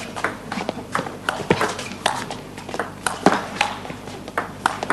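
Table tennis ball clicking off rackets and the table during a rally, sharp knocks at uneven intervals.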